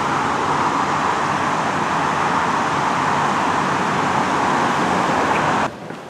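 Steady rushing noise of distant road traffic, even and unbroken, that cuts off suddenly near the end.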